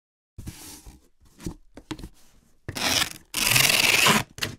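Scratchy rubbing sound effects: a few short strokes, then two longer, louder ones near the end.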